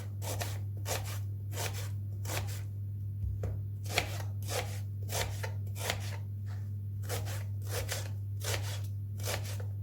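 Kitchen knife dicing an onion into small cubes on a cutting board, about two chopping strokes a second, often in quick pairs, over a steady low hum.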